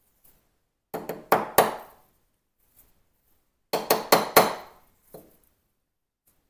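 Small hammer gently tapping the extractor-claw retaining pin into a CZ 75 Kadet pistol slide: two quick runs of metallic taps, three about a second in and four more a few seconds later.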